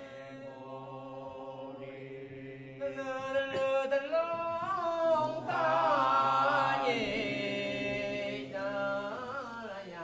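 Music: a voice singing a slow, wavering chant-like melody over a steady low drone. The voice comes in about three seconds in, louder than the drone.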